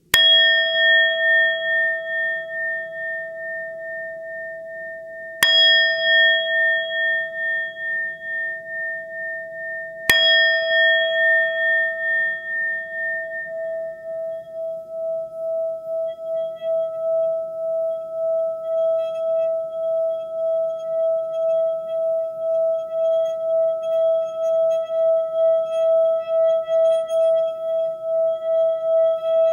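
A singing bowl struck three times, about five seconds apart, each strike ringing out. After the third it carries on as one steady, wavering tone, over a faint low hum.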